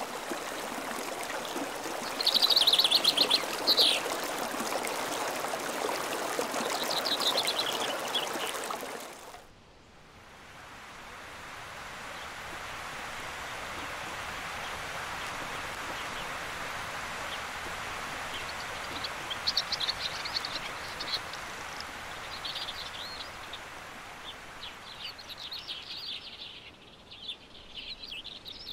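A shallow river rushing over a gravel riffle, with birds chirping over it in short high bursts. About nine and a half seconds in, the sound cuts to a quieter, steady hiss, with more bird chirps in the second half.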